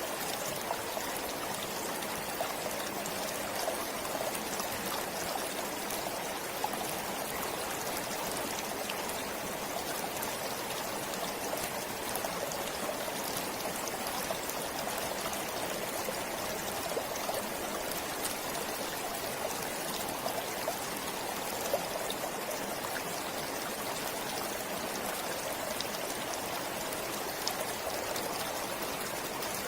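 A forest stream flowing steadily, water rushing and trickling with small splashes and bubbling clicks.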